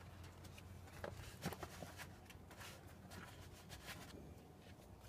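Near silence: a low steady hum with a few faint clicks and taps from hand work at the engine, about a second in and again between two and three seconds.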